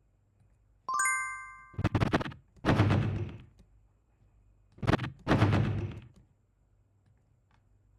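Layered sound effects on an advert's edit: a bright ringing ding about a second in, followed by four short thuds, each with a brief noisy tail, the last two close together.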